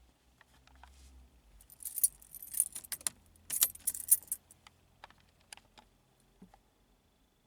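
Car keys jangling in two bouts, about two and four seconds in, followed by a few light clicks.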